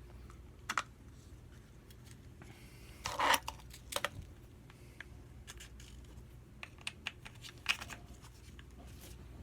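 Scattered light clicks and rustles of small engine parts being handled as the carburetor goes back onto a small two-stroke engine, over a faint steady low hum.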